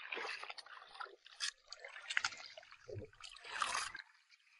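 Shallow tide-pool water among rocks sloshing and trickling, with a few sharp clicks.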